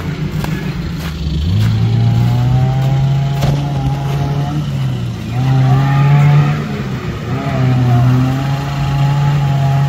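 Niva off-roader's four-cylinder engine revving hard under load while the stuck vehicle struggles to get through and fails to make it. The revs rise sharply about a second in, then stay high with two brief dips.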